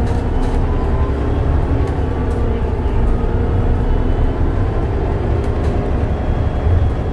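Mercedes-Benz O405NH midi bus with Voith automatic transmission running: a steady low engine drone with faint whining tones above it and a few light ticks.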